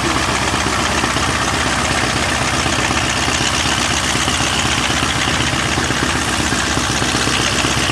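Argus As 10 inverted air-cooled V8 aircraft engine idling steadily, propeller turning.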